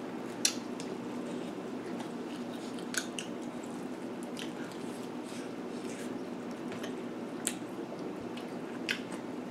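Close-up chewing and mouth sounds of people eating pizza and garlic bread, with a handful of short wet clicks over a steady low room hum.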